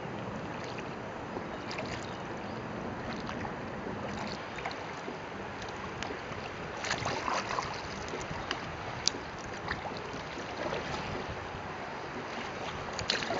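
Steady rush of river water running through small rapids around a kayak, with a few short sharp splashes and knocks, the loudest about nine seconds in.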